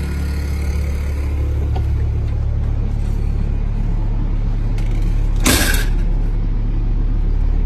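RV rooftop air conditioners running with a steady low hum, after close to an hour of running without faults. A brief swishing noise comes about five and a half seconds in.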